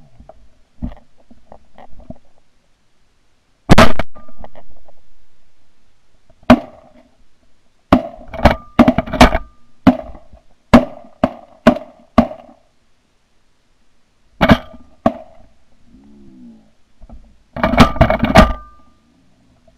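A string of close-range 12-gauge shotgun shots, several fired a fraction of a second apart in quick follow-up strings. The loudest come about four seconds in and in a tight cluster near the end.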